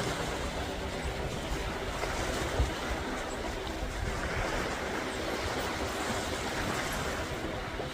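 Steady wash of sea and wind noise, with a single brief knock about two and a half seconds in.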